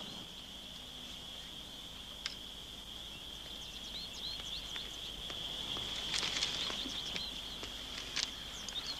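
A steady, high chirring insect chorus, with short chirps over it and a few faint clicks, growing a little louder about halfway through.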